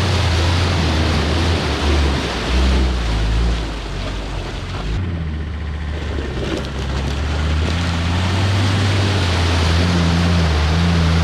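Off-road 4x4 engine labouring with its pitch rising and falling, over a steady rushing noise.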